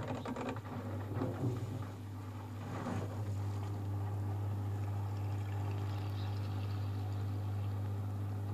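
Miele Softtronic W 2557 washing machine starting up suddenly, then running with a steady low hum. Water sloshes and gurgles over the first three seconds or so.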